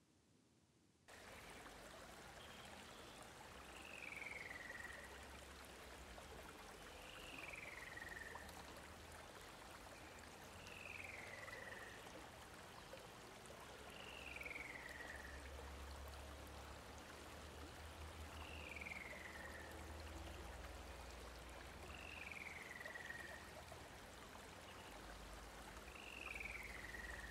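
A faint, steady hiss of outdoor ambience begins about a second in. Over it, a single falling whistled call comes seven times at even intervals, about every three and a half to four seconds.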